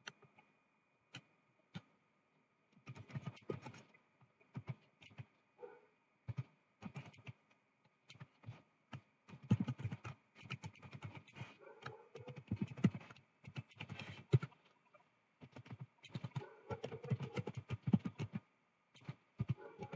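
Computer keyboard typing in runs of keystrokes: a few scattered clicks at first, then busier bursts of fast typing in the second half.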